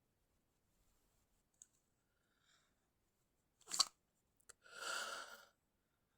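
A person's stifled sneeze: a short, sharp burst held in behind a closed mouth, a little past halfway, followed by a longer breath lasting under a second.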